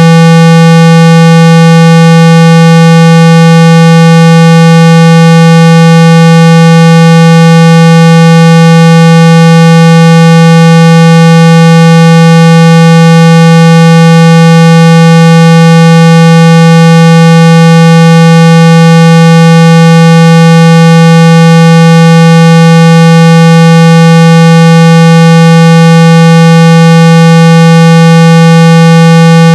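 A very loud, steady 165 Hz tone with a buzzy edge, held unchanged. It is a speaker-cleaning tone, played through a phone speaker to shake dust and water out of the grille.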